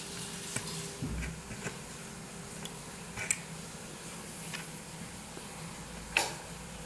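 Small metal parts of a sink-mounting clamp clicking and tapping as they are handled: the steel clamp is worked off its holder on the underside of a composite sink and a screw is set to it. There are a few sharp clicks scattered through, the loudest near the end.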